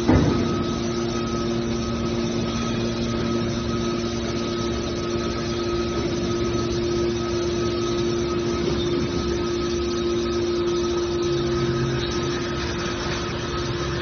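Hydraulic scrap metal baler running, its hydraulic pump humming steadily while a cylinder drives the lid closed. A short clunk comes right at the start.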